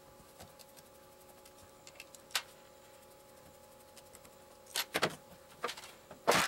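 Sharp clicks and taps of small parts from an airsoft DSG gearbox being taken apart by hand: a single click about two seconds in, a cluster near five seconds, and the loudest clatter near the end, over a faint steady hum.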